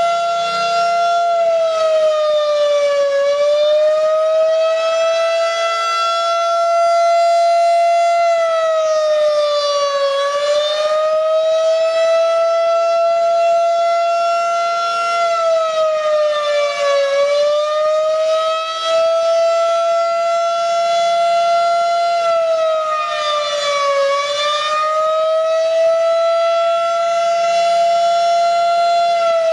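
Federal Signal 2001-SRN rotating electronic warning siren sounding a steady alert tone during its monthly test. It is loud and continuous, and its pitch sags slightly and comes back about every seven seconds.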